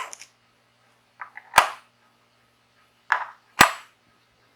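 Small metal lens aperture plates being handled: twice a short light rattle followed by a sharp click as a plate is set down, about two seconds apart.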